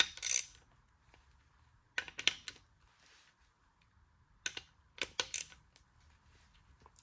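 Hand ratchet clicking in a few short groups of metallic ticks while connecting-rod cap bolts are turned through their torque-to-angle pass, with quiet gaps between the swings.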